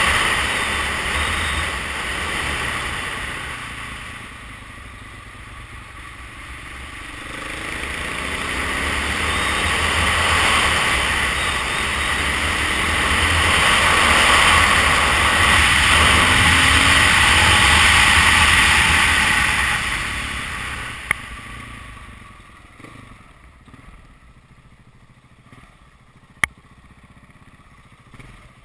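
KTM 690 Enduro's single-cylinder engine running under way, mixed with heavy wind rush over the camera microphone, rising and falling with speed. About two-thirds in it drops much quieter as the bike slows, with two sharp clicks.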